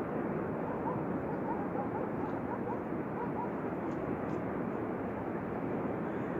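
Thunderstorm sound: a steady rumbling noise at an even level with no distinct thunderclap. A series of faint short chirps repeats over the first half.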